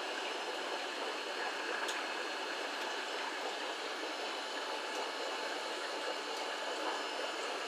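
Steady rushing hiss of aquarium water circulation from the tank's filter, even and unbroken.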